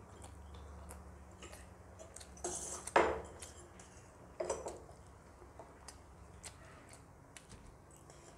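Metal fork clinking and scraping against a steel plate of noodles, with scattered light clicks and one sharp clink about three seconds in, along with chewing.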